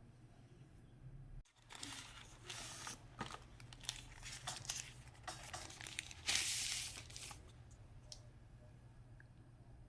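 Phone packaging being torn open and crinkled: a run of scratchy rips and crackles begins about a second and a half in. The loudest and longest rip comes near the end, and then the sounds stop.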